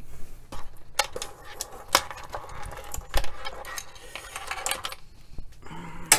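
Test cables with metal connectors clinking and rattling against each other as they are sorted and pulled from a bundle hanging on a wall hook, in a string of sharp clicks and short jangles. The loudest click comes near the end.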